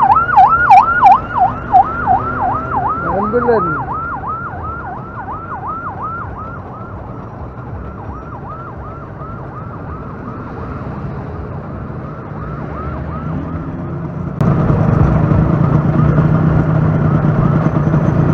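Ambulance siren on a fast yelp, its pitch sweeping up and down about four times a second, loud at first and fading as it moves away. A louder steady rumble starts suddenly near the end.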